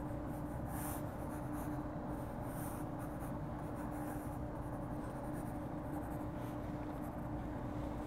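Graphite pencil scratching on sketchbook paper in short, irregular strokes as a drawing is shaded in, over a steady faint hum.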